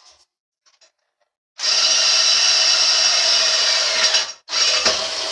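Power drill boring a mounting hole: a loud steady run of about two and a half seconds, a brief stop, then a second shorter run near the end.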